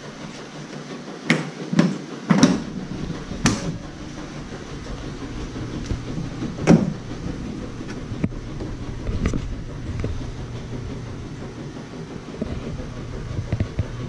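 Sharp clicks and knocks of hood-pin latches being undone and a carbon-fibre car hood being lifted open, several in the first few seconds and one more about seven seconds in. Under them, a washing machine runs with a steady low hum.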